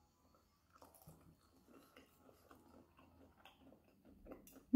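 A person chewing a mouthful of breaded vegan cordon bleu: faint, soft chewing sounds repeating a few times a second, starting about a second in.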